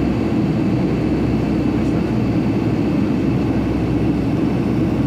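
Steady drone of a Boeing 757-300 airliner in flight: engine and airflow noise, even throughout and heaviest in the low range.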